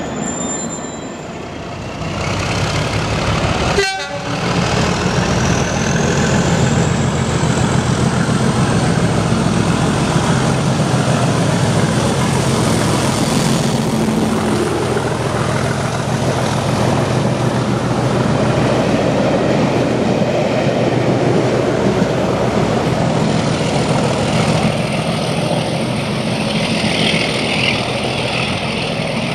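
Class 37 diesel locomotive's English Electric engine running with a steady deep drone, after a short break about 4 seconds in.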